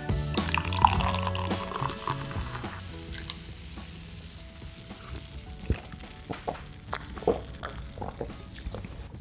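Food sizzling and crackling in frying oil, with scattered sharp crackles, over background music that fades over the first few seconds.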